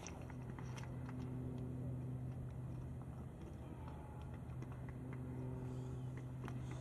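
Steady low engine hum, with faint scattered clicks over it.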